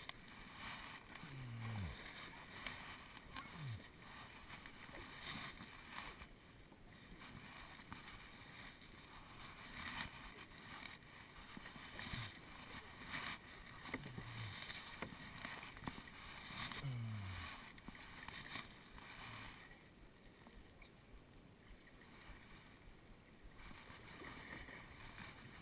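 Kayak paddling: a double-bladed paddle dipping and pulling through calm water, with soft splashes and drips every couple of seconds, easing off near the end.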